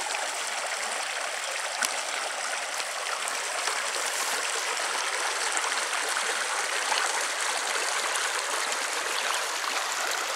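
Shallow floodwater from the overflowing Assiniboine River running steadily through grass and over stones in a roadside ditch.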